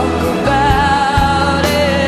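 Pop ballad music: a held melodic lead line over steady sustained bass notes that change about every second.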